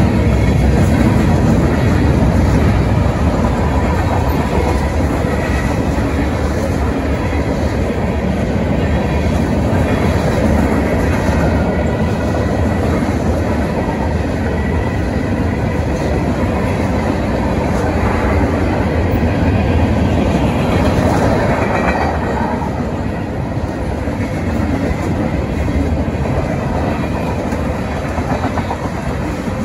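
Freight train cars (covered hoppers, tank cars and boxcars) rolling past over a grade crossing, their wheels on the rails making a steady, loud rolling noise that eases slightly about two-thirds of the way through.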